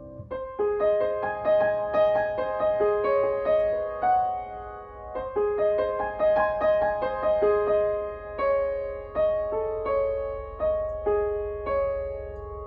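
Steinway & Sons grand piano being played: a steady stream of single struck notes forming a melody over repeated lower notes. The last notes ring and die away near the end.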